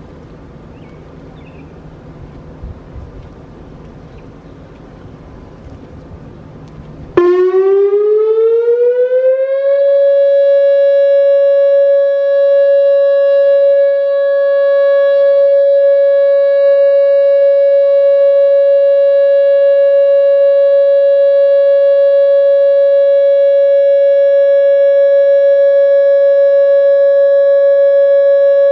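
Whelen WPS-2905 electronic outdoor warning siren sounding a steady alert tone: it starts suddenly about seven seconds in, glides up in pitch over a couple of seconds, then holds one loud, even tone with strong overtones.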